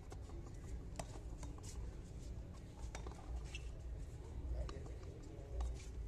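Sharp smacks of a frontón ball being struck by hand and rebounding off the wall during a rally, the loudest about a second in and near three seconds, over a steady low rumble.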